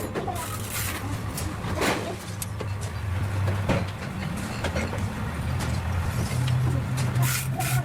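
A vehicle engine running steadily, its pitch stepping up about six seconds in, with a few sharp knocks over it.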